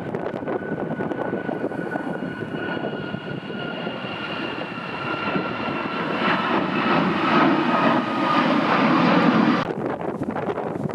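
Airliner engines passing close, a rushing roar with a high whine that slowly falls in pitch and grows louder, then cuts off suddenly near the end.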